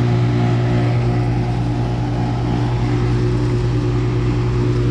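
2012 Bryant Legacy air conditioner's outdoor unit running with a loud, steady hum and a weird metallic sound. The owner thinks the unit may make it because it has never been cleaned.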